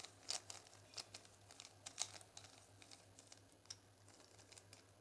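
Faint, irregular plastic clicks of a 3x3 Rubik's cube's layers being turned by hand, several a second at first and thinning out near the end.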